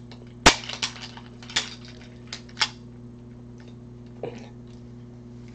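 Sharp metallic clicks and clacks of a Grand Power P11 pistol being put back together by hand: about five clicks in the first three seconds, the first the loudest, then a few fainter ticks and a soft knock.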